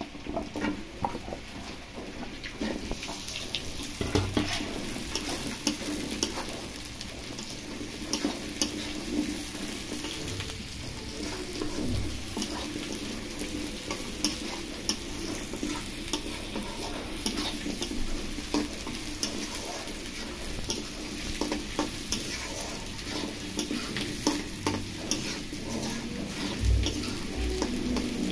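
New potato chunks and sliced onion sizzling in hot oil in a black karahi, stirred continuously with a long-handled metal spatula that scrapes and knocks against the pan many times.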